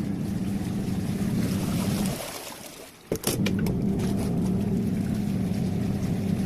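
Washing machine motor running in on-off bursts with a water-like swish: it runs about two seconds, winds down, and starts again with a few clicks about three seconds in. This is the stop-start pattern of an agitation cycle.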